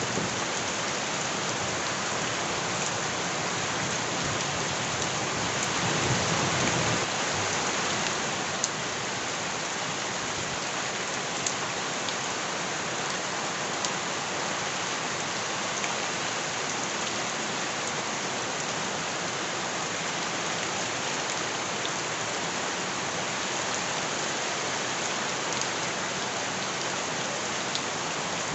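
Steady heavy rain falling on surfaces, with a few sharp drop ticks here and there. It swells louder with a low rumble about six seconds in, then settles back to an even downpour.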